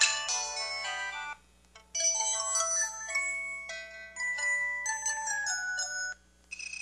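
A PH-K1500 mobile phone's built-in ringtone melodies playing through its small speaker, bright and bell-like: one tune ends about a second and a half in, and after a short pause a second tune plays until about six seconds in. After another brief pause a third begins near the end.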